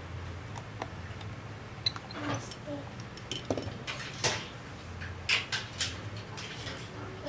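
Small metal tools and phone parts clicking and tapping on a workbench, irregular light handling noises with a few sharper clicks, over a low steady hum.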